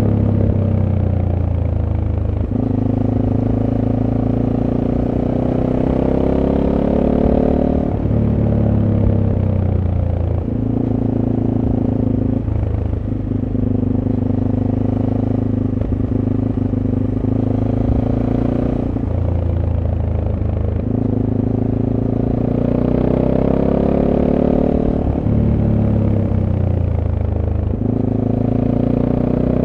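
SWM Superdual T's single-cylinder engine with its stock exhaust, heard onboard while riding. The engine pitch climbs as it pulls, holds steady, then drops back sharply at each gear change, several times over, with lighter cruising stretches between.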